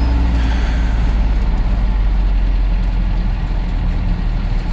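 Steady low rumble of a vehicle's engine and road noise while driving, heard from inside the cabin.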